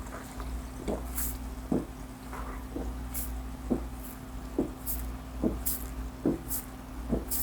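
A person chugging cola in big gulps, about nine swallows at a steady pace of a little more than one a second, with a faint steady hum behind.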